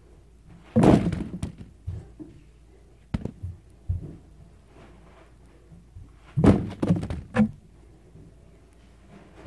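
Several thumps and knocks picked up by a phone inside a cardboard box of packing peanuts: a loud thump about a second in, a few lighter knocks, then a cluster of loud thumps about two-thirds of the way through.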